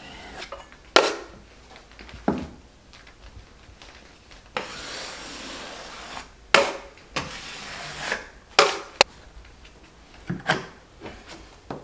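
Drywall knife scraping joint compound along a corner bead: a series of short, sharp scrapes and clicks, with one longer steady scrape of about two seconds a little over four seconds in.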